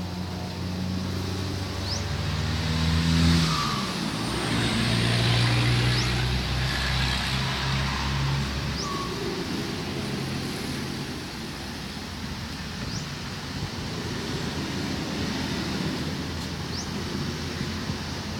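A motor engine running with a steady low hum that shifts in pitch about three and a half seconds in and dies away after about nine seconds, leaving an even rumbling noise.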